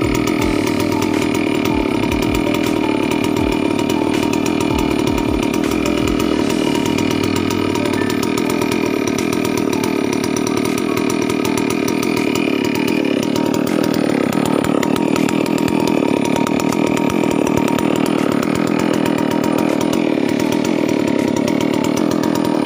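New Falcon FC 6800 two-stroke chainsaw engine running steadily and loudly, being broken in on a full tank of 1:20 oil-fuel mix.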